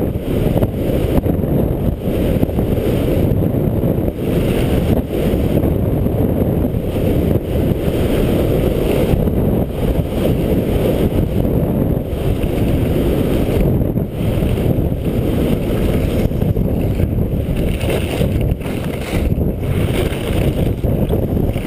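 Wind rumbling on a point-of-view camera's microphone during a fast downhill ski run, with skis hissing and scraping over the snow in passing surges as the skier turns.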